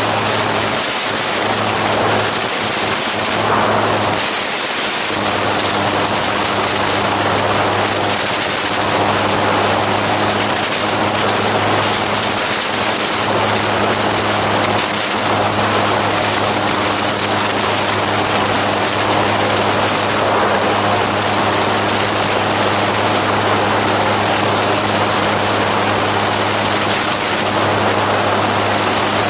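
Gyroplane's engine and pusher propeller running steadily in flight: a constant low drone under a loud, even rush of air noise.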